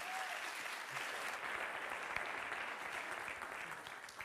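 Audience applauding, a dense steady clapping that starts to taper off near the end.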